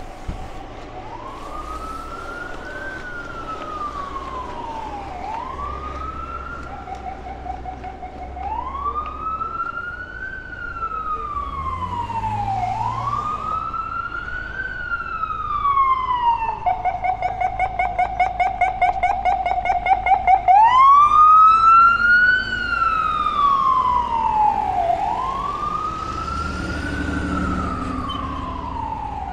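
Emergency vehicle siren wailing in slow rising and falling sweeps. About two-thirds of the way through it switches for a few seconds to a rapidly pulsing steady tone, then sweeps up again at its loudest, over a low street-traffic rumble.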